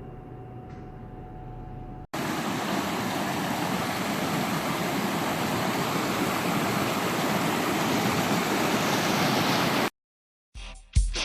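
Waterfall rushing: a loud, steady, even noise of falling water that cuts in abruptly after a quieter low hum and stops suddenly. Strummed guitar music starts near the end.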